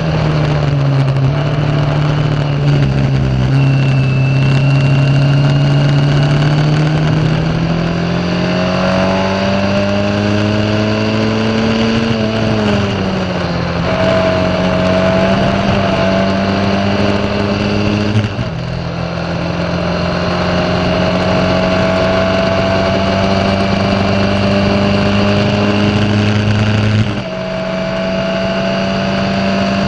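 Formula Ford's Ford Kent 1600 four-cylinder engine at racing speed, heard from the cockpit, with revs rising and falling with the throttle. The revs fall for a corner about halfway through, then climb again, with two sudden drops in pitch and loudness where it changes up a gear, about two-thirds of the way in and near the end.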